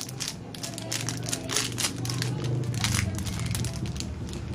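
Plastic packaging crinkling and crackling in irregular bursts as it is handled, over a low steady hum.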